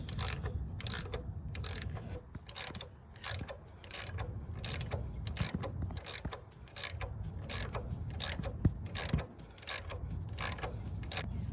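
Hand ratchet being worked in steady back-and-forth strokes, its pawl clicking about every 0.7 seconds. It is turning the nut of a crank hub installer tool to press the hub onto the crankshaft.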